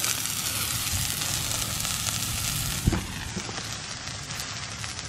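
New York strip steak sizzling in a carbon steel frying pan over a wood fire, a steady hiss. About three seconds in there is a single knock, after which the sizzle is fainter and duller.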